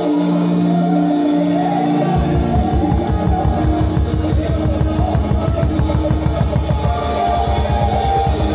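Live gospel band and choir music: held keyboard chords with choir singing, then about two seconds in the drum kit and bass come in with a fast, steady groove, the drums close and prominent.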